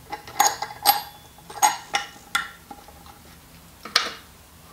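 Sharp metallic clinks of small tap fittings (washer and fixing hardware) being handled and fitted onto a tap's tail under a ceramic basin. Several come in the first two and a half seconds, and one more about four seconds in.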